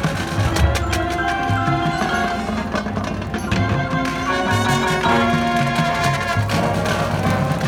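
High school marching band playing: held notes from the winds and brass over a busy run of percussion strikes.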